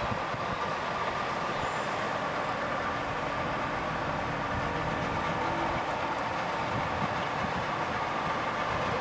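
A steady rushing noise with a faint high hum in it.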